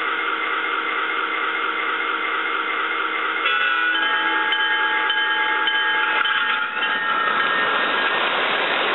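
Onboard sound system of a model Amtrak F40PH diesel locomotive: a steady chord of tones, then a multi-note horn chord from about three and a half seconds in that holds until about seven seconds. After that comes an even hiss as the train runs past.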